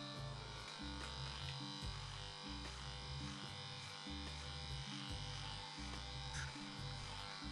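Electric hair clipper buzzing steadily as it is run up the back of the neck, trimming the short hair at the nape.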